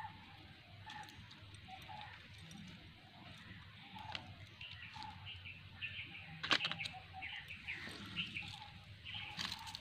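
Birds chirping: a short note repeating throughout, joined by a run of quicker, higher chirps in the second half. A brief cluster of sharp taps comes about two-thirds of the way through and is the loudest moment.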